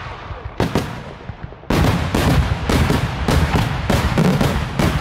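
Daytime fireworks: aerial shells bursting with sharp bangs. There are a couple of separate bangs in the first second, then from about two seconds in a fast, unbroken run of loud bangs, about four a second.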